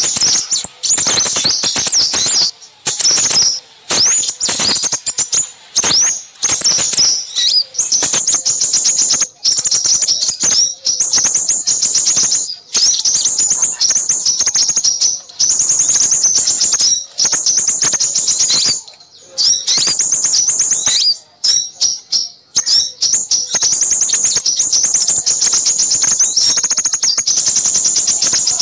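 Small songbirds chirping and trilling busily in rapid strings of high, thin notes, nearly unbroken, with a short lull about two-thirds of the way through. It is a lure recording of noisy small birds, made to draw in crimson sunbirds.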